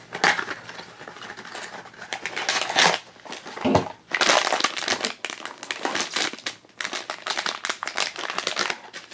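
Foil blind-box bag crinkling and crackling in quick bursts as it is handled by hand and torn open to get the figure out.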